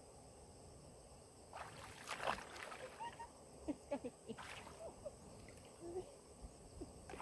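Stream water splashing and sloshing, with short plops and gurgles, as a log raft is worked in the water to test whether it floats. The splashing starts about one and a half seconds in and comes in irregular bursts.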